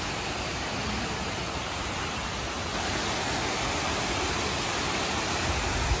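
Steady rush of a waterfall, an even, constant noise that gets a little louder about three seconds in. A brief low thump comes near the end.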